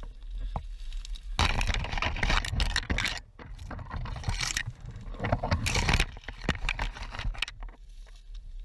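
Bursts of rustling and scraping with small clicks and rattles, coming in three stretches, the first and loudest starting about a second and a half in: the sound of a player moving through brush with gear rattling.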